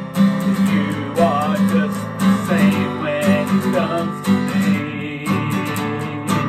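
A worship song: acoustic guitar strummed in a steady rhythm, with a man singing over it.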